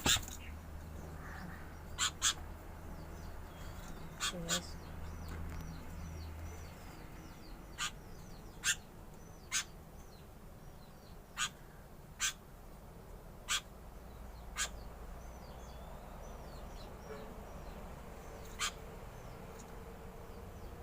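Caged songbirds calling: about a dozen short, sharp, loud call notes at irregular intervals over faint continuous twittering from other birds.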